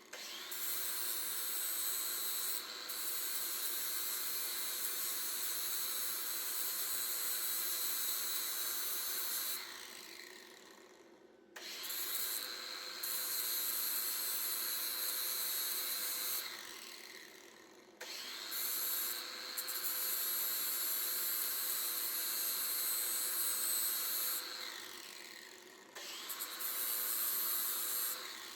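Handheld electric grinder run four times in bursts of several seconds, cleaning up a steel pulley and hub before welding; each time the trigger is released its whine falls away as the motor spins down.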